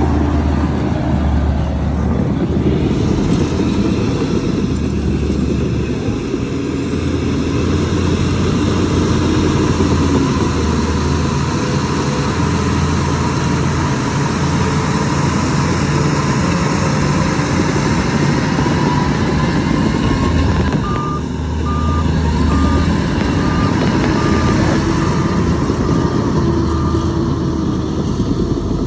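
Heavy diesel engines of a bulldozer and dump truck running hard, with a steady low drone. About three-quarters of the way in, a reversing alarm beeps repeatedly for several seconds.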